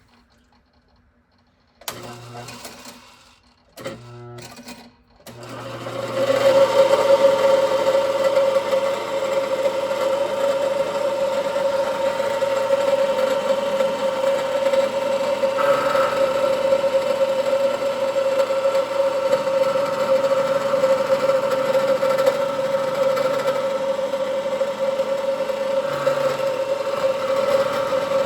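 Small machine-tool motor, switched on in two short runs about two and four seconds in, then running steadily with a constant whine from about five seconds in while machining a metal bracket part flat.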